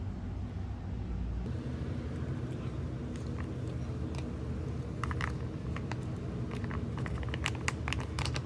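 Foil retort food pouch crinkling and crackling as curry is squeezed out of it, in scattered sharp clicks that grow busier in the second half. A steady low hum runs underneath.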